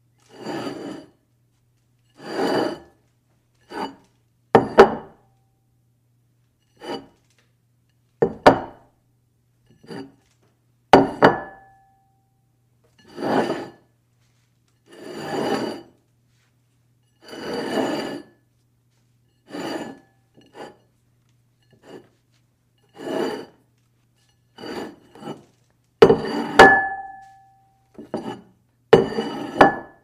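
A dish slid across a table in short separate strokes, about seventeen in all, each a scraping rub of half a second to a second. Some strokes start or end with a sharp knock, and twice a clink rings on briefly.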